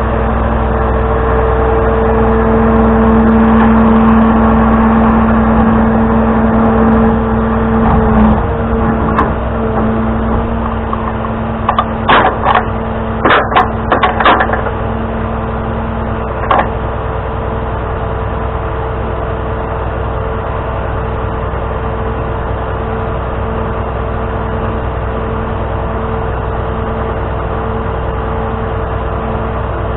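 Tow truck running steadily with a steady whine that eases about eight seconds in. A quick cluster of clicks and clanks comes a little before halfway, and one more shortly after.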